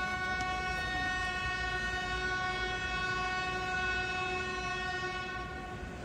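Electric passenger train's horn sounding one long, steady blast as the train approaches the station, fading out near the end.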